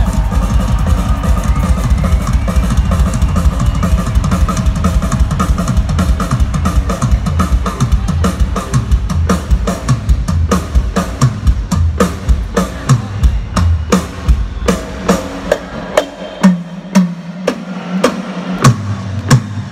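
Live rock drum kit played through a large arena PA: dense bass drum and snare fills over a low rumble. About two-thirds through, the rumble drops away and the playing thins to single hard hits about half a second apart.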